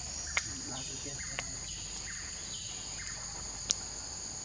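Steady high-pitched drone of forest insects. Three short sharp clicks cut through it; the loudest comes about three-quarters of the way through.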